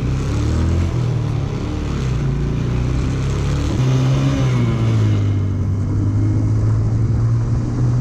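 Motorcycle engine running while riding, heard from the handlebars, with wind rushing over the microphone. The wind rush eases about five seconds in, leaving a steady engine note.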